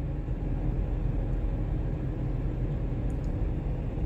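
Steady low rumble inside a parked car's cabin, with a couple of faint ticks a little after three seconds in.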